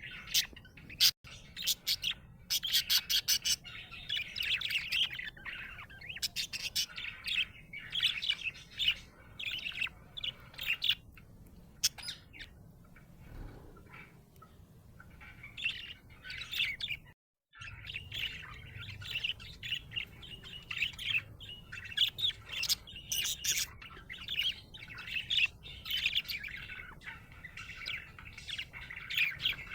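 Budgerigar chirping and chattering in quick, busy runs of high chirps, with a short break of silence about seventeen seconds in.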